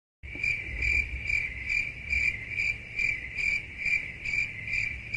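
Cricket chirping sound effect: a steady high chirp pulsing about twice a second, starting a moment after dead silence. It is the stock 'crickets' gag for an awkward, unanswered silence.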